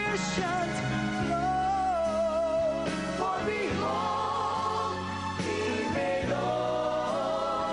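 Gospel-style worship song: singing voices hold long notes with vibrato over steady instrumental accompaniment.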